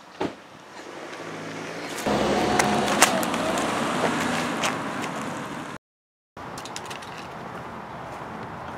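A car pulling away and driving off down a street. Engine and tyre noise rise sharply about two seconds in, then cut off suddenly. After that comes a steadier, quieter outdoor hiss with a few faint ticks.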